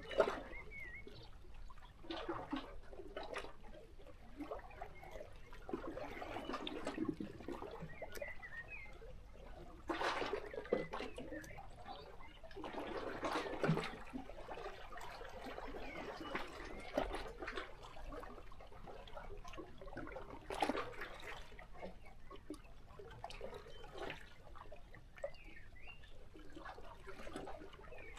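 Small sea waves lapping and splashing against shoreline rocks, coming in irregular washes every few seconds, with a few faint bird chirps.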